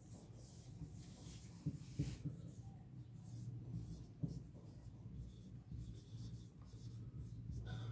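Felt-tip marker writing on a whiteboard: faint, short scratchy strokes with a few sharp ticks, over a steady low hum.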